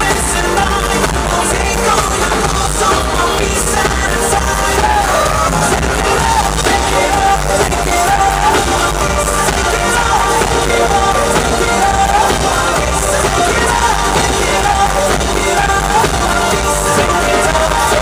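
Loud live pop song: a male singer's lead vocal over a band with drums.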